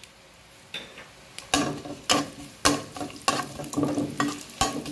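Metal spatula scraping and striking a wok about twice a second, stirring sliced shallots frying in hot pork lard, over a faint sizzle. The strokes begin about a second and a half in, each with a short ring from the wok.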